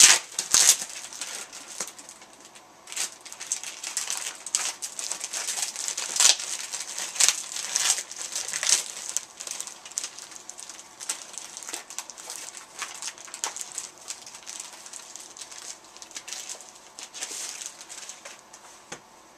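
Packaging rustling and crinkling in irregular crackles as a mailed box is opened and its contents handled.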